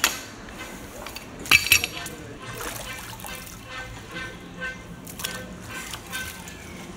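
Pipe wrench clanking against a steel soil-sampling tube: a sharp clink at the start, then a quick cluster of ringing metallic clinks about a second and a half in, with a few lighter clinks later. Some muddy water splashes from the tube.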